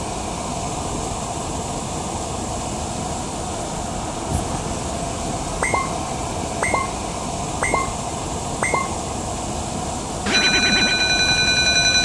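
Steady rushing noise with a click, then four short rising chirps about a second apart. Near the end a railroad crossing warning bell starts: a fast-trilling electronic ring that keeps going.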